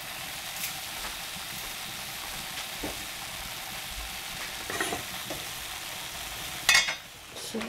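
Steady hiss from a stainless saucepan of sugared strawberry pieces heating on a lit gas burner, with a few faint knocks and one brief, loud clatter near the end.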